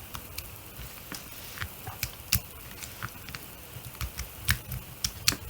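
Sticky shampoo-and-salt slime being handled on a tabletop, giving irregular small wet clicks and squishes as it stretches and pulls away.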